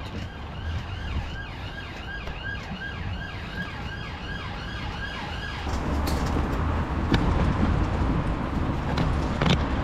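Emergency-vehicle siren sounding in a fast repeating yelp, about three cycles a second. It stops about six seconds in and gives way to a louder low rumble of road traffic with a few knocks.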